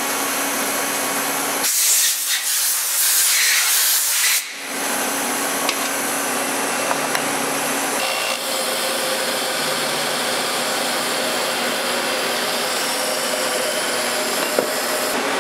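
Machine-shop machinery running with a steady hum. About two seconds in, a loud hiss lasts for about two and a half seconds.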